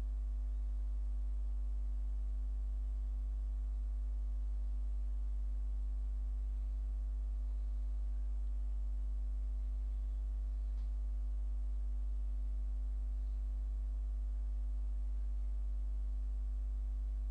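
Steady low electrical hum, mains hum on the recording, unchanging throughout.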